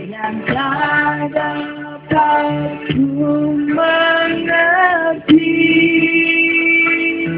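A woman singing a slow pop ballad through a hand-held microphone and PA, over amplified backing music. She sings a string of held notes, wavers on one a little before five seconds in, then holds one long note to the end.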